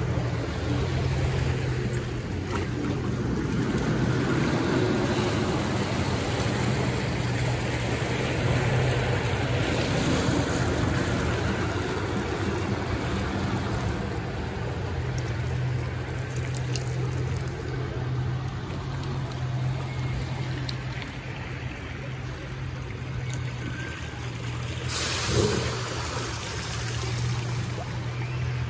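Water rushing and churning along the concrete channel of a river raft ride, over a steady low hum. The hiss of the water grows louder near the end.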